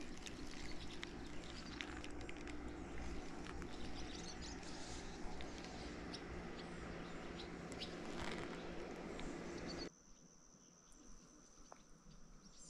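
Birds chirping over a steady outdoor background, with scattered small clicks. About ten seconds in, the background drops off abruptly and leaves a faint, steady high tone.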